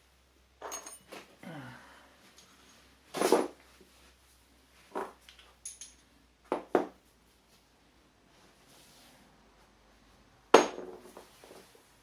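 Metal hand tools and loose parts clinking and knocking as a motorcycle is taken apart: a string of separate clanks and clinks, with the loudest knock near the end.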